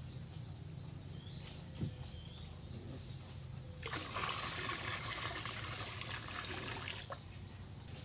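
Water poured out of a clay jar, splashing down over rocks for about three seconds, starting suddenly about four seconds in and stopping as suddenly.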